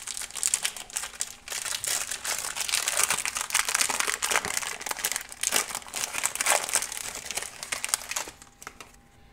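Foil wrapper of a hockey card pack crinkling as it is handled, with the cards pulled from it; the crinkling stops about eight seconds in.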